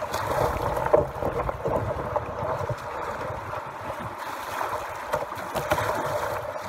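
Rushing water of class II rapids around a canoe, with splashing paddle strokes and a sharp knock about a second in.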